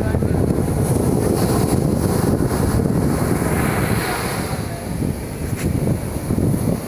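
Wind buffeting the microphone in a continuous low rumble, over the rush of surf breaking and washing up the sand.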